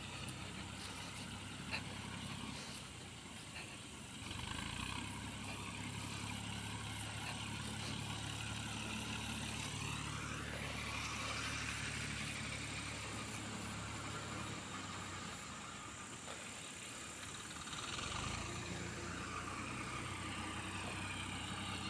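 Small farm tractor's engine running steadily in the paddy field, a low chugging hum whose note shifts a little around the middle and again near the end.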